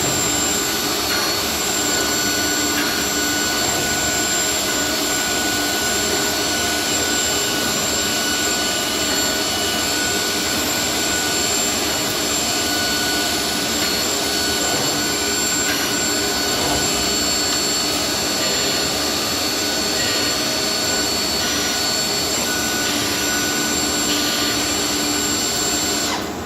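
Holemaster 4000 X Line CNC drilling machine running: a steady high-pitched whine over a loud, constant rushing noise.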